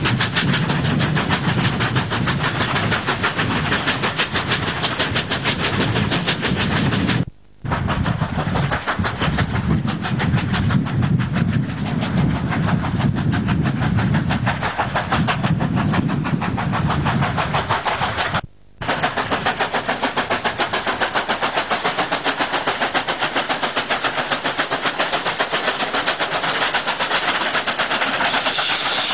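Two double-headed steam locomotives, NSW 36 class 4-6-0 No. 3642 and 59 class 2-8-2 No. 5910, working hard up a steep grade with fast, continuous exhaust beats. The sound cuts out briefly twice, about a third and two-thirds of the way through.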